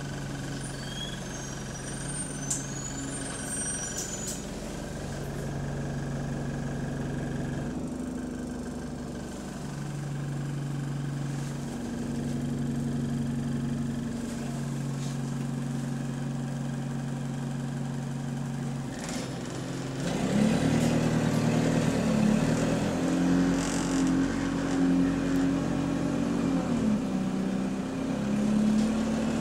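Bus engine heard from inside the saloon, running with a burst exhaust. It hums steadily at first, with a few short high squeaks in the first few seconds. About two-thirds of the way in it gets louder, its pitch rising and falling as the bus pulls harder.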